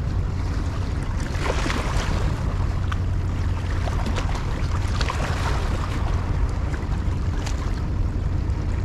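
Wind rumbling steadily on the microphone over small waves lapping against shoreline rocks.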